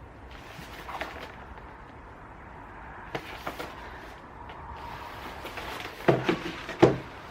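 Boxes and packaging being handled: faint rustles and light clicks, then two louder knocks near the end, under a second apart.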